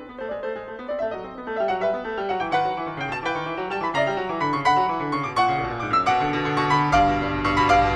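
Background piano music: a flowing run of quick notes, with lower bass notes joining in about six seconds in.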